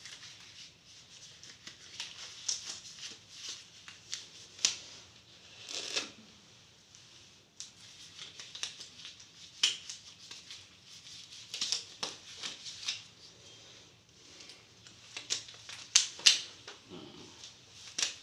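Disposable examination gloves being pulled onto the hands: crinkly rustling broken by a series of sharp snaps, the loudest near the end.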